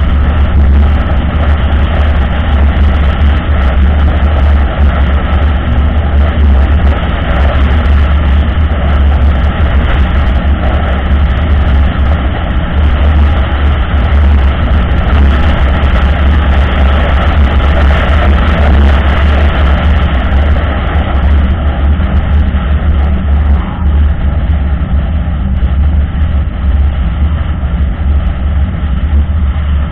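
Steady road and engine drone of a car travelling at speed, heard from inside the cabin, with a heavy low rumble under the tyre noise.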